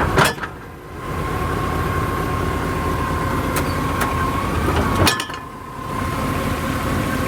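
A 2000 Chevy Silverado's 5.3-litre V8 idling, with a sharp clunk from the driveshaft as the truck is shifted into gear, twice, about five seconds apart. The clunk is the sign of a driveshaft problem.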